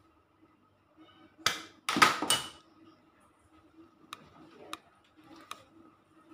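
Pliers cutting and stripping electrical wire insulation: a quick cluster of three loud scraping snips about one and a half to two and a half seconds in, then a few light clicks of the tool.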